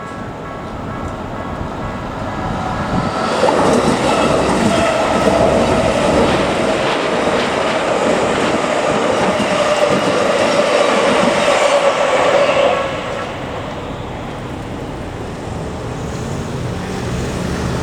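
Keikyu Line electric train passing over a level crossing: wheel and motor noise builds over the first few seconds, holds loud for about nine seconds, then drops away suddenly. The crossing's warning bell rings steadily underneath throughout.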